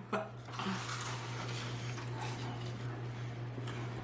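Quiet room tone with a steady low hum and a brief faint sound just after the start.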